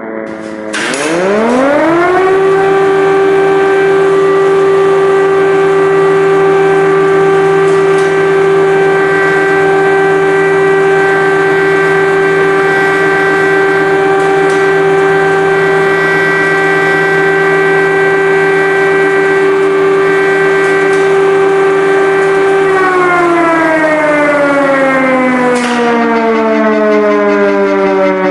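Air-raid warning siren sounding an alert: its wail rises quickly about a second in, holds one steady pitch for about twenty seconds, then begins to slide down near the end, with a lower steady tone beneath it.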